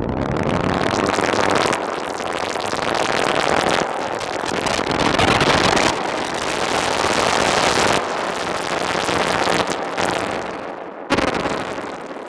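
Novation Bass Station 2 analogue synthesizer playing a harsh noise drone, its envelope retriggering in a loop so that a fresh surge of noise starts abruptly about every two seconds. It is run through a Roland Space Echo-style tape echo effect. Near the end the noise thins to a hiss and fades.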